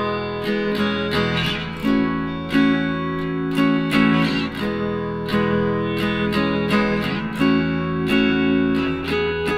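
Background music: acoustic guitar strumming chords at an even, unhurried pace.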